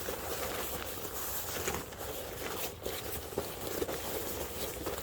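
Trekology UL50 inflatable sleeping mat being pressed flat to push the air out, its fabric rustling and creasing irregularly, with a few light clicks.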